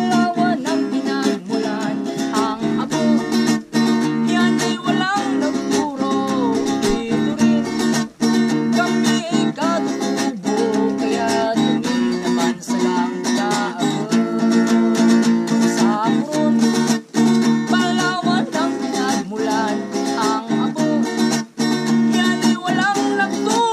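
Acoustic guitar strummed by hand, chords ringing one into the next in a steady rhythm.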